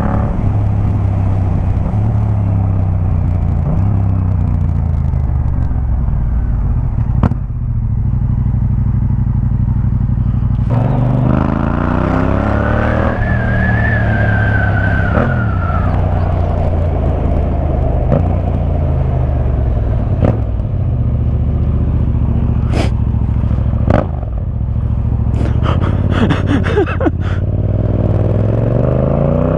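Yamaha MT-07's parallel-twin engine running through an Akrapovic 2-into-1 carbon exhaust under way. The revs climb and drop again and again as it accelerates and changes gear.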